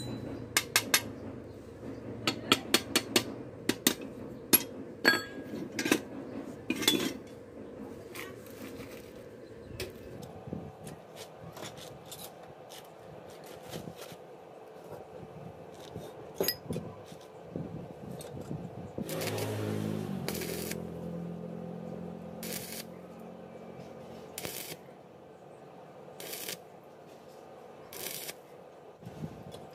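Metal clinking and light hammer taps on a steel jig and locking pliers, fast at first and then sparser. A short pitched motor drone sounds about two-thirds in. Near the end come several short crackling bursts of stick arc welding about two seconds apart: tack welds.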